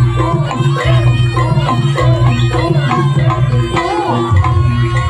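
Javanese jaranan accompaniment music: hand-drum (kendang) patterns with a repeating pitched melody over a steady low drone.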